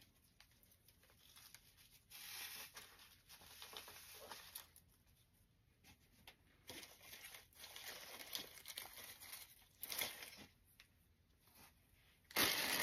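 Artificial floral stems and plastic leaves being handled, rustling and crinkling in short, faint bursts, loudest near the end.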